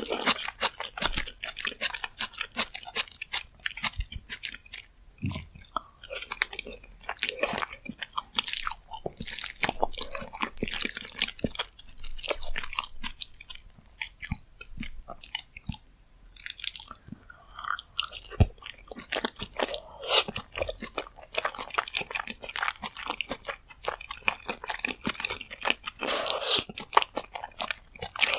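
Close-miked chewing and biting of spicy rose jjimdak, with quick, crisp, wet mouth clicks and smacks throughout.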